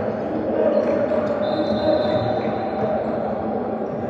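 Gym sound during a basketball game: a ball bouncing on the hardwood under a steady hum of crowd and player voices echoing in the hall. A thin high squeak lasts about a second and a half, starting a little over a second in.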